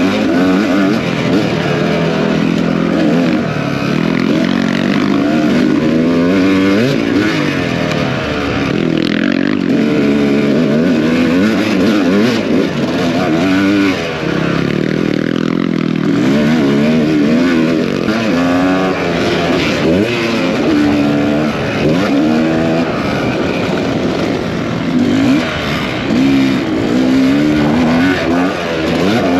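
Dirt bike engine revving hard and backing off over and over, its pitch rising and falling every second or two as it is ridden at race pace.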